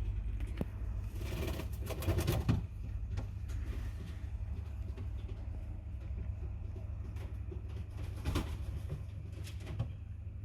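A hen making low, soft cooing calls, a pitched call about a second in and shorter ones near the end, over a steady low rumble.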